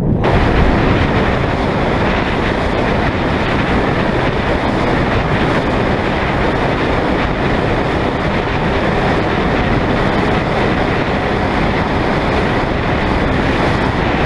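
Steady loud rushing of wind and water on a fishing boat in rough, very windy conditions, with no break in it.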